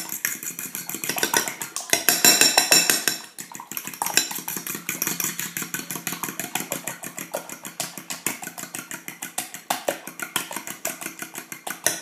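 Fork beating eggs in a glass bowl: rapid, even clicking of the metal tines against the glass, loudest about two seconds in.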